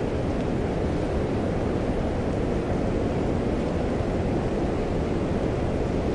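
Steady storm ambience of rain and wind: an even noise, heaviest in the low end, with no thunderclap or other sudden sound.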